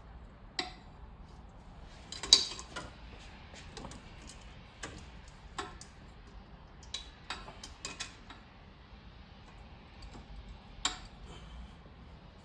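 Scattered sharp metallic clicks and clinks from hand tools on the engine as it is turned over by hand and the rocker arms are worked on. The loudest clank comes about two seconds in, with a few clicks in quick succession around seven to eight seconds.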